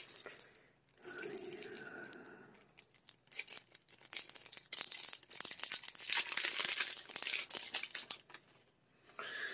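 Plastic shrink wrap being torn and crumpled off a deck of trading cards: a dense run of fine crinkling, heaviest in the middle and stopping shortly before the end.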